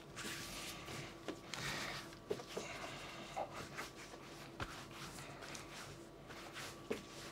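Hands rolling, pressing and folding baguette dough on a floured work surface: soft rubbing and shuffling with a few light taps, over a faint steady hum.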